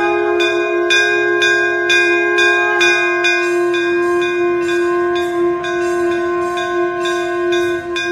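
Bell music: ringing bell strikes about twice a second over a steady held tone.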